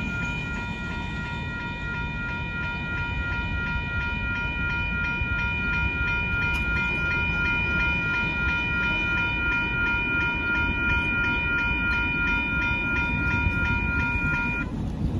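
Railroad grade-crossing warning bell ringing steadily over a low rumble, then cutting off near the end as the gates finish rising: the crossing clearing after a train has passed.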